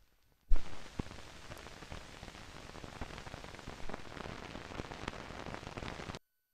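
Crackle from the run-out of a 1973 film's soundtrack: a loud pop about half a second in, then steady crackling with scattered clicks from dust and scratches on the film, cutting off abruptly near the end.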